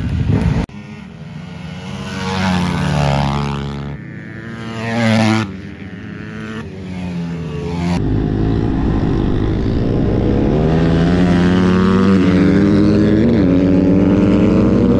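Several pit bike engines running and revving as they ride, the pitch climbing and falling. From about 8 s in, one pit bike's engine is heard close up from on the bike, running steadily and rising gently in pitch as it picks up speed.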